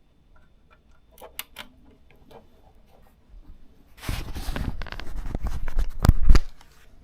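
Handling noise from cables and equipment being moved: a few light clicks, then about two and a half seconds of loud rustling and bumping. The hardest knocks come near the end before it stops suddenly.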